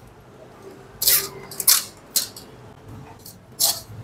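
Metal ladle scraping and knocking in a fine-mesh stainless steel sieve as it presses cooked shrimp shells to strain the stock. A few short, sharp scrapes come about a second apart, with another near the end.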